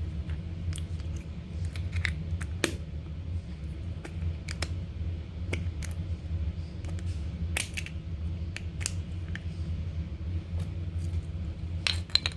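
Slime being kneaded and mixed with putty by hand, giving irregular small clicks and pops, over a steady low hum.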